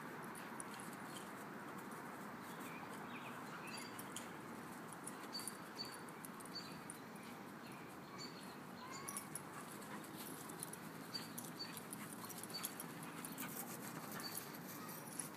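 Two dogs playing and wrestling on grass: faint scuffling and occasional small whines over a steady background hum.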